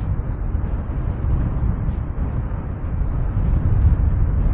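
Wind noise on the microphone and road rumble from an electric scooter ridden at speed, a steady rushing heaviest in the bass.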